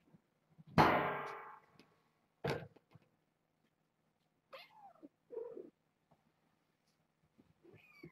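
A loud metallic clang about a second in that rings out and fades over about a second, then a sharp knock. Cats meow twice in quick succession a few seconds later.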